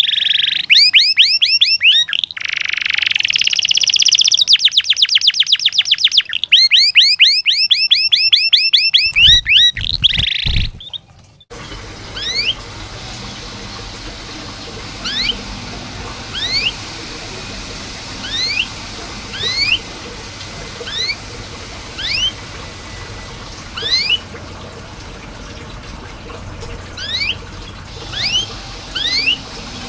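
Domestic canary singing a loud, fast song of rapid repeated trill rolls for about the first eleven seconds. It breaks off suddenly. Then come short, single rising chirps, roughly one a second, over a steady background hiss.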